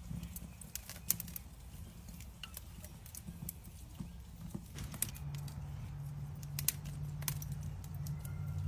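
Irregular sharp clicks and pops from a grill where bacon-wrapped chicken drumsticks are cooking, over a low hum that turns into a steady low drone about halfway through.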